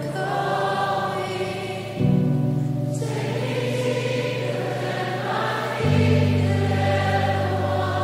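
Background choral music: a choir singing long held chords, the chord changing about two seconds in and again near six seconds.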